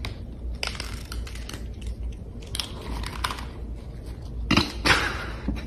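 Cats crunching dry kibble from a bowl: bursts of crisp crunching, the loudest near the end.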